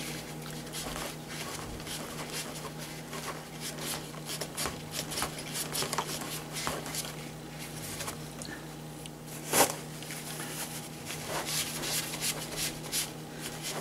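Tissue wiping and dabbing a plastic RC truck chassis plate dry: faint scratchy rubbing and small ticks, with one sharper knock about nine and a half seconds in, over a steady low hum.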